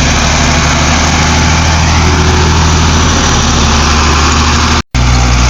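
Dump truck's diesel engine running steadily at idle, close by. The sound cuts out for an instant near the end.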